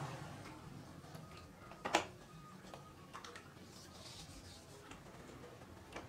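Quiet handling of a sponge scrubber in and out of aquarium water while scrubbing the tank glass. There is one sharp click about two seconds in and a few lighter ticks a second later.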